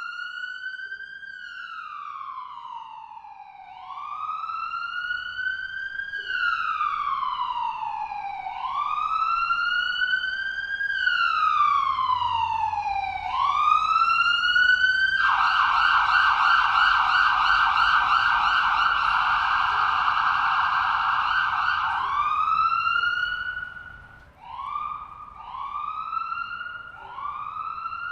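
Ambulance siren wailing, sweeping up and down about every two and a half seconds and growing louder. About halfway through it switches to a fast yelp for some seven seconds, then goes back to shorter, quicker rising sweeps near the end.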